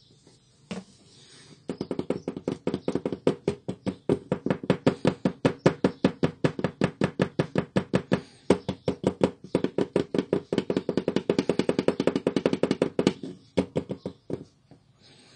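HP 17A plastic toner cartridge knocked rapidly and rhythmically, about six knocks a second, to settle the freshly poured toner in its hopper. The knocking breaks off briefly midway, stops near the end, and a few single knocks follow.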